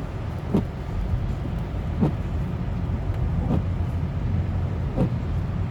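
Car cabin while driving slowly through snow: a steady low road and engine rumble, with the windshield wipers sweeping about every one and a half seconds, four strokes in all.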